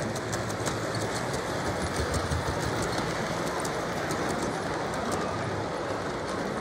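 Model train rolling past on layout track: a steady rumble of wheels and motor with a quick, irregular patter of clicks from the wheels crossing rail joints.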